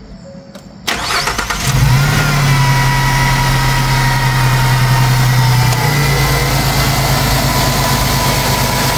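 A 2017 Ford Transit 350 van's engine being started after an oil change. The starter cranks briefly about a second in, the engine catches and runs at a raised idle, and about six seconds in it settles into a steady idle.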